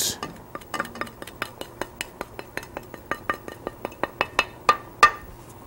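Kitchen utensil clinking against cookware in quick, fairly even taps, about five a second, some with a short ring.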